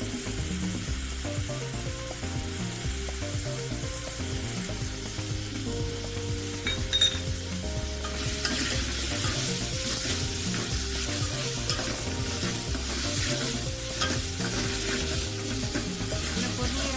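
Stirring and hand-mixing of chicken and onions in a steel pot, a noisy scraping and squishing that grows louder about halfway through. Background music with a low bass line that moves in steps plays under it.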